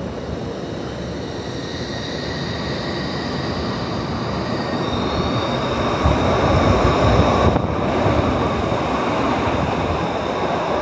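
A new Stadler-built Glasgow Subway train pulls out of the platform. A thin high whine rises in pitch about five seconds in as the train gathers speed, over wheel and rail rumble. The rumble grows louder and is loudest as the cars run past at about six to seven seconds.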